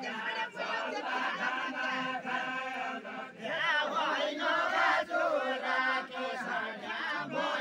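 Group of men singing a Deuda folk song together in a chanting style, many voices holding and sliding through the same lines over the noise of a crowd.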